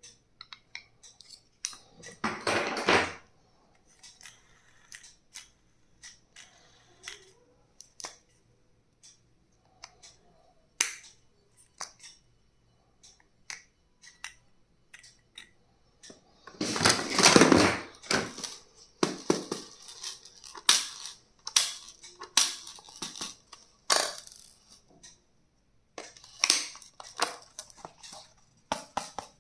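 Stationery items and their packaging being handled: scattered sharp clicks and taps, with two louder bursts of rustling, one about two seconds in and one about seventeen seconds in.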